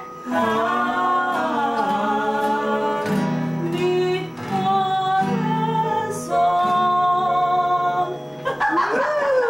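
A woman singing a song while accompanying herself on a nylon-string classical guitar, holding long notes that step from pitch to pitch.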